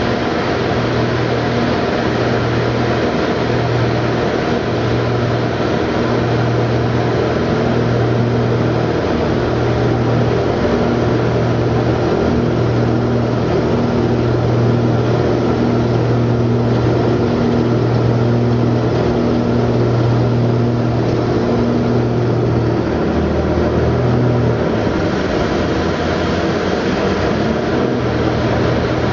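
Light aircraft engine and propeller droning steadily inside the cockpit, with a regular throbbing in the tone. About 25 seconds in the tone drops and changes, then rises again near the end as the nose pitches down out of the climb.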